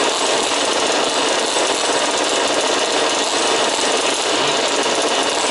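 Several 1/5-scale RC Baja buggies' small two-stroke engines running together, a steady buzz with no let-up.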